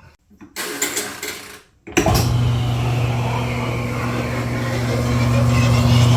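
A few clicks and rattles, then about two seconds in the old Whirlpool washing machine's motor switches on and runs steadily with a strong low hum, turning the newly fitted V-belt that drives the washer's pulleys and drain pump; the sound grows a little louder toward the end.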